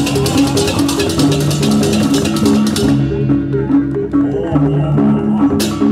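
Balinese gamelan music accompanying a dance: pitched metal keys play a repeating melody over drumming. Fast, crisp percussion strokes run alongside, break off about halfway through and return briefly near the end.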